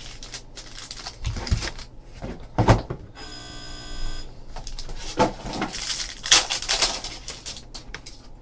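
A sealed trading-card hobby box being handled and opened: knocks on cardboard and crinkling of the wrapper. About three seconds in, a steady electronic ringing tone sounds for about a second.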